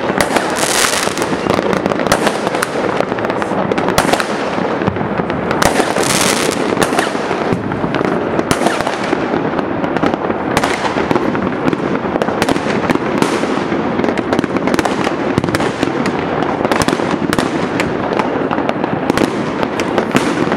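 Many fireworks and firecrackers going off at once across a city: a dense, unbroken crackle of countless bangs with no pause, with louder, brighter bursts about a second in and again about six seconds in.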